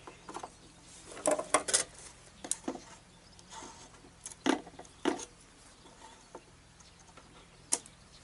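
A scatter of light clicks and taps from hands handling a wooden model steamboat while fitting rope-hung fenders and working with scissors: a quick cluster about a second in, then single clicks spaced out.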